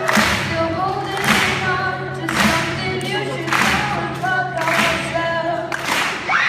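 A boy singing to his own strummed acoustic guitar. A chord is strummed about once a second, and the last stroke comes near the end.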